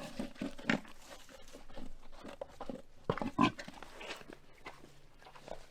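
Pigs giving a few short grunts amid smaller scattered noises, the loudest about three seconds in.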